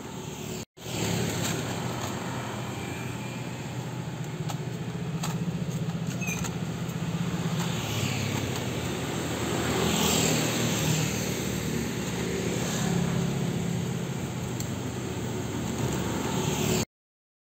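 Street traffic: a steady hum of motor vehicle engines, with swells as vehicles pass about eight to eleven seconds in and again near thirteen seconds. The sound drops out briefly just under a second in and cuts off suddenly near the end.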